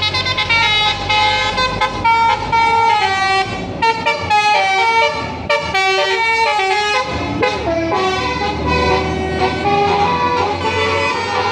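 A tour bus's basuri telolet musical air horn playing a tune in quick stepped notes, over the bus's engine running.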